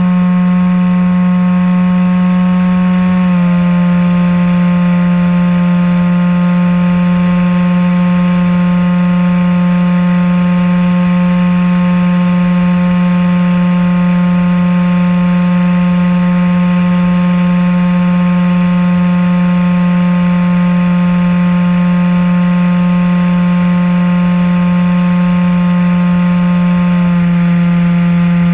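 Motor and propeller of a Maxi-Swift RC flying wing, heard from its onboard camera: a loud, steady buzz that steps up slightly in pitch about three seconds in and drops back near the end as the throttle changes.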